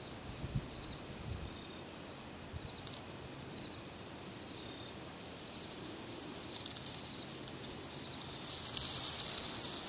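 Faint outdoor ambience of leaves and dry grass rustling, a crackly high hiss that grows louder in the last second or two, with a few faint short high chirps about a second in and again near the middle.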